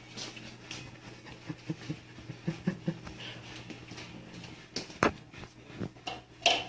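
Cats at plates of dry cat food: small, quick knocks and crunching as they jostle and eat, then two sharp clacks, one about five seconds in and one near the end.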